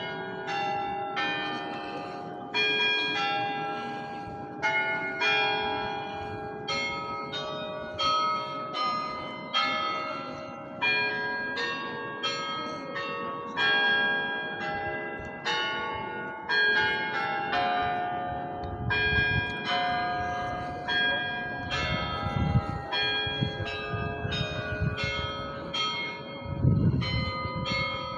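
Cathedral bells ringing: several bells of different pitches are struck one after another, roughly two strikes a second, each note ringing on under the next.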